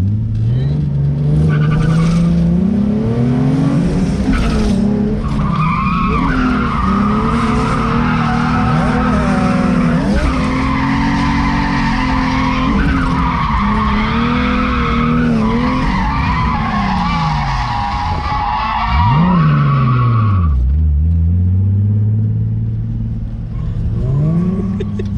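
Car engine revving hard as the car spins its tires, the rear tires squealing loudly under wheelspin; the engine note rises and falls with the throttle. The squeal stops about twenty seconds in, the revs drop right down, then climb again.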